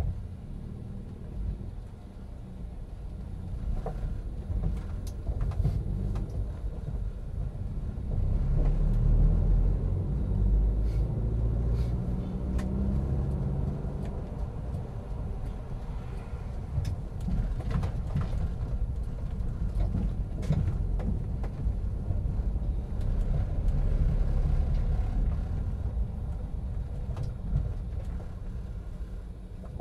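A buggy being towed behind a Pajero TR4 on the move: a low road rumble that swells and eases, with scattered rattles and knocks.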